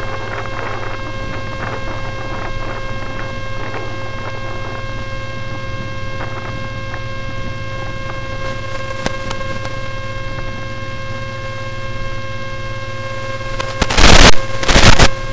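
Steady electrical hum with several fixed whining tones, picked up onboard an RC airship in flight, with faint scattered crackles. Near the end come two very loud blasts of noise, each under a second long.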